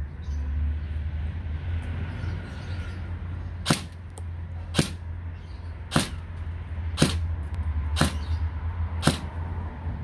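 MP5-style electric (AEG) blaster firing single shots: six sharp cracks about a second apart, starting a few seconds in, over a steady low rumble.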